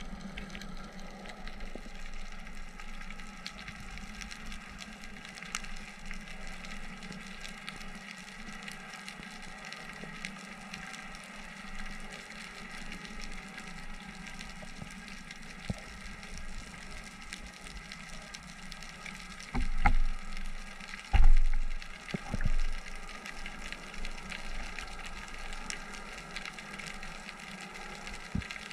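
Underwater ambience: a steady hiss with scattered faint clicks. A cluster of three low thumps about two-thirds of the way through is the loudest sound.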